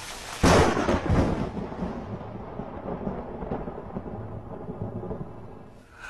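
A thunderclap: a sudden loud crack about half a second in, followed by a long low rumble that slowly fades away.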